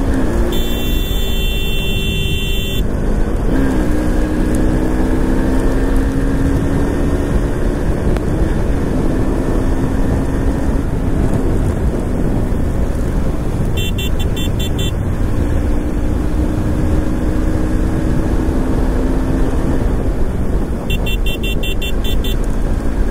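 Motorcycle engine running at road speed, its note rising slowly and dropping back a couple of times as the rider changes gear, under a heavy rumble of wind on the microphone.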